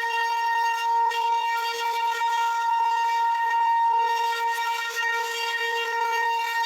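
CNC router spindle running with a steady high-pitched whine that holds one pitch throughout.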